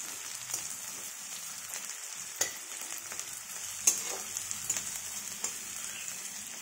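Chopped onions and green chillies sizzling in hot oil in a metal kadai, with a steady hiss, stirred with a metal spatula that scrapes and knocks against the pan several times, loudest about two and a half and four seconds in.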